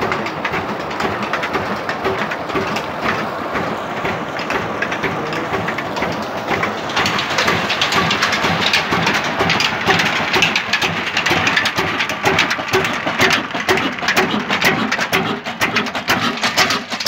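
Water gushing from a well pump's outlet pipe into a concrete channel, a steady rushing splash. From about seven seconds in, the fast knocking beat of the old stationary engine that drives the pump comes to the fore. The pump gives only a modest flow because the bore is low on water.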